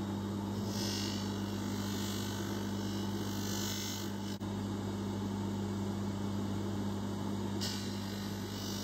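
Bench polishing motor running with a steady hum, its spindle-mounted buffing wheel spinning. A hissing rub comes in from about a second in to about four seconds, and again briefly near the end, as a gold-plated watch case part is pressed against the wheel to blend down worn plating.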